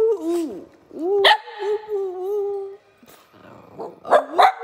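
Cavalier King Charles Spaniel vocalising: a sharp yelp about a second in that runs into a held howling note, then two sharp barks near the end.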